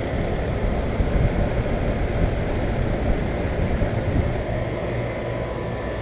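Outdoor condenser fan of a 2001 York 2.5-ton central air conditioner running steadily with a low, uneven rumble. The compressor is not running, only the fan, a fault the owner ties to a brief power flicker. A little quieter near the end.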